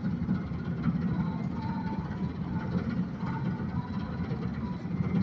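Steady low rumble of a river cruise ship's diesel engines running while it manoeuvres.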